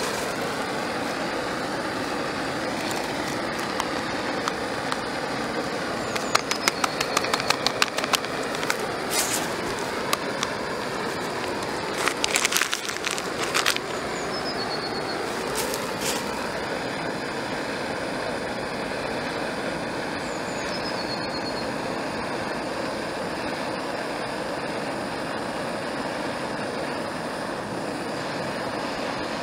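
Small gas canister stove burning steadily under a metal camping mug, an even rushing noise from its flame. Runs of sharp clicks and rattles come about six to nine seconds in and again around twelve to fourteen seconds in.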